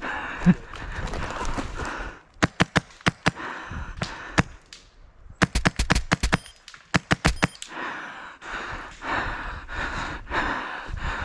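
Airsoft guns firing: a string of sharp single shots, then after a short pause a rapid burst of about two seconds, between stretches of noisy breathing.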